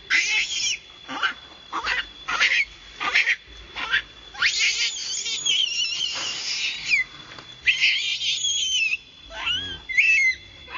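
Newborn baby macaque screaming in distress: a run of shrill, wavering cries, short and rapid at first, then two longer drawn-out screams, then short cries again.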